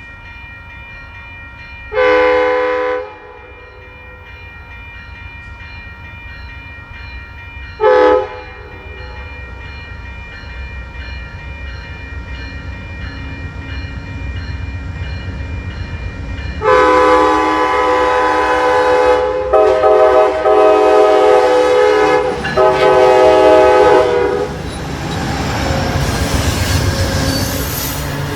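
Multi-chime train air horn: a one-second blast, a short blast about six seconds later, then loud horn blasts for about eight seconds while a train's rumble builds. Near the end the train passes with a steady rush of wheels on rail.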